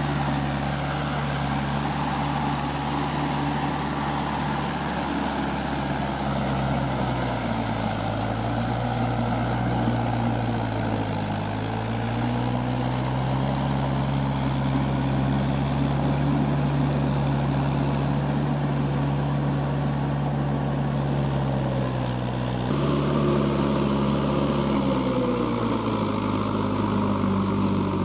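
Mahindra tractor's diesel engine running under load as its cage wheels churn through paddy-field mud. The engine note sags and recovers twice.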